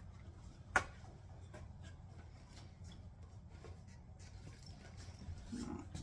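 Faint handling sounds of a spiral notebook being put away and a pencil bag picked up: one sharp click about a second in, then scattered small clicks and rustles over a low steady hum.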